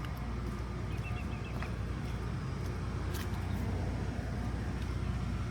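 Steady low outdoor rumble, with a short run of faint high chirps about a second in and a few faint ticks.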